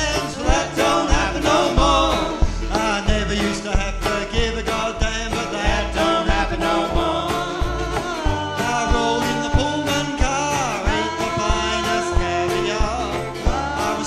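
Live acoustic string band: acoustic guitar and a small banjo strum a steady beat over upright bass, with singing on top. About halfway through, the singing moves into long held notes.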